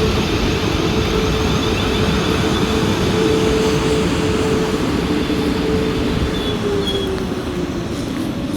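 A train passing close by at speed: a loud, steady rush of wheels on rail with a held hum that sinks slightly in pitch toward the end.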